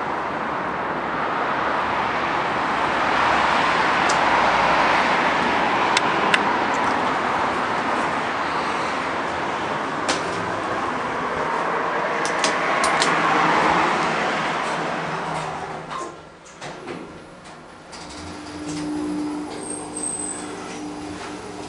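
A steady wash of outdoor traffic noise with a few clicks. About sixteen seconds in it falls away as the sliding doors close. An Otis Gen2 machine-room-less traction elevator then runs downward with a steady low hum.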